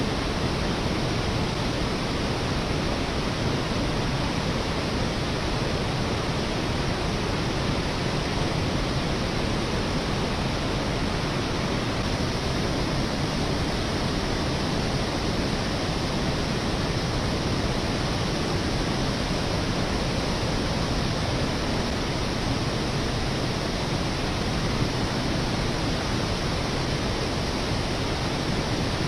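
Steady rushing of water pouring over a concrete dam's overflow section, an even unbroken roar with no rise or fall.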